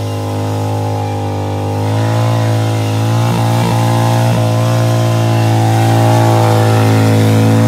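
Cruiser-style motorcycle engine held at high revs during a burnout, the rear tyre spinning on the track. The engine note wavers, climbs a little about two seconds in, and stutters briefly a few times near the middle.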